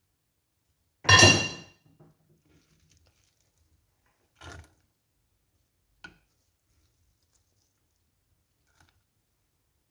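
Kitchenware being handled: one loud clink that rings briefly about a second in, then a softer knock and two small clicks spaced over the following seconds.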